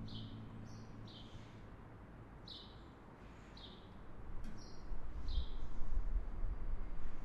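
A small bird giving short chirps that drop in pitch, about eight of them, spaced half a second to a second apart. Under them is a low rumble that grows louder from about four seconds in.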